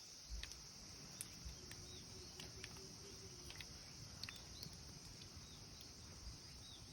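Steady high-pitched drone of cicadas, with scattered ticks of rain dripping and a few short bird chirps, all faint.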